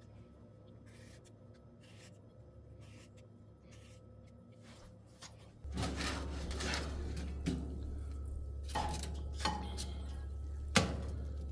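Faint clicks of a knife on a plate as pear slices are set down. Then a steady low hum with foil rustling as a foil-lined baking tray is slid out of a countertop oven, with a few metal knocks against the rack, the loudest near the end.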